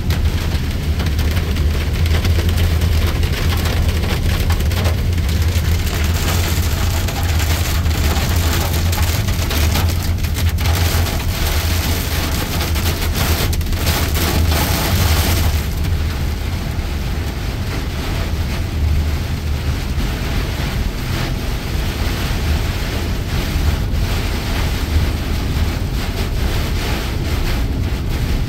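Heavy rain hitting the windscreen and body of a moving vehicle, heard from inside the cab over a steady low drone of engine and tyres on the wet road.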